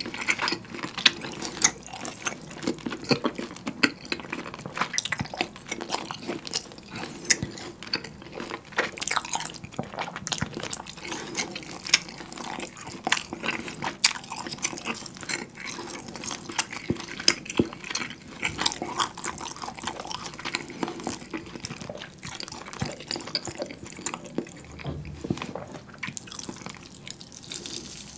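Close-miked wet chewing of a thick, rare beef steak, a steady stream of small smacking clicks. Near the end, the meat is torn apart by hand.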